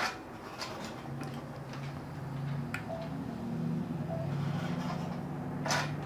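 Computer-guided longarm quilting machine running a programmed stitch-in-the-ditch line: a steady low machine hum that swells about a second in, with a few sharp clicks.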